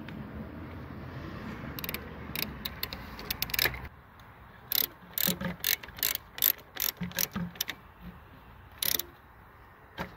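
Socket ratchet clicking in short irregular bursts as it tightens a new coolant temperature sensor into a Hyundai Terracan's thermostat housing. A steady low rumble underneath stops about four seconds in.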